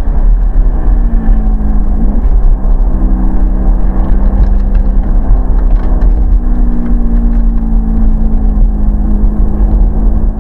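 Ferrari mid-mounted V8 engine heard from inside the cabin while driving. It climbs in pitch about a second in, then runs fairly steady at cruising revs over a heavy low rumble.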